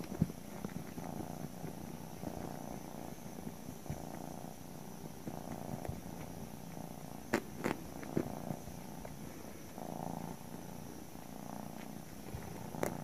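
Cat purring quietly and steadily, swelling and fading about once a second with its breathing. A few sharp clicks come about seven to eight seconds in, and one more near the end.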